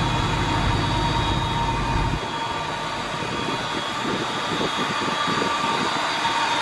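Ship engine-room machinery running: a steady mechanical drone with a constant whine and hiss. The deep rumble drops away sharply about two seconds in, leaving the higher whine.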